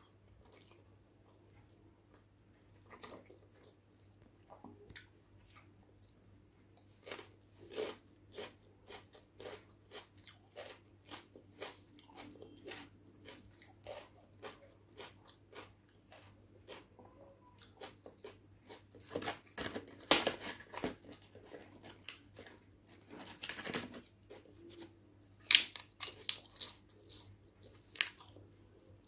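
Close-miked eating by hand: wet chewing of egg biryani, mouth clicks and smacks, with louder crisp crunches of papad in the second half, the loudest about 20, 23 and 25 seconds in.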